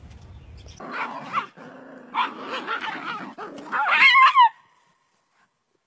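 A dog barking and yelping, the calls loudest and shrillest near the end before cutting off suddenly.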